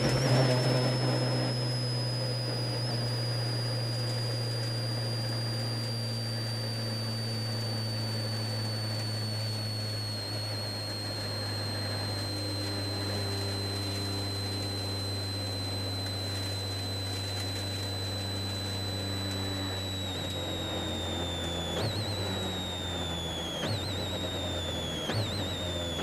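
Citroën C4 WRC rally car heard from inside the cockpit: the engine runs at steady, moderate revs with a high drivetrain whine that slowly falls in pitch as the car slows. Near the end the whine jumps up and falls away again three or four times.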